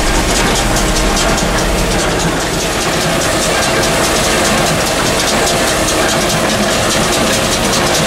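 John Deere 6300 tractor's diesel engine and a John Deere 328 small square baler running together while baling hay: a steady engine drone with the baler's continuous mechanical clatter.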